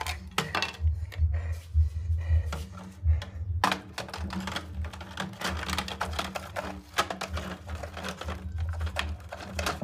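A run of small plastic clicks and taps as a battery pack and its plug connector are fitted into the battery compartment on the underside of a toy RC car.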